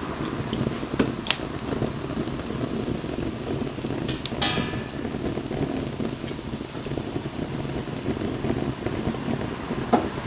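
Wood campfire burning, a steady crackle with scattered sharp pops from the burning wood; the loudest pop comes about four seconds in, with another near the end.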